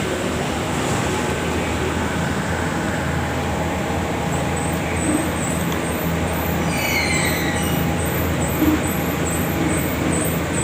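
Steady mechanical rumble and hum. From about four seconds in, a regular series of short, high chirps runs over it.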